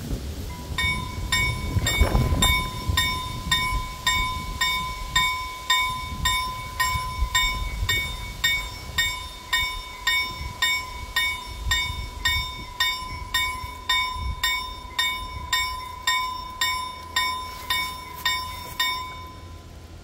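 Level-crossing warning bells, a KLD-4315 and a Vialis EBA sounding together: a steady high tone with a bell striking about twice a second over it. They start just after the beginning and stop shortly before the end, once the full barriers are down. A low rumble comes about two seconds in.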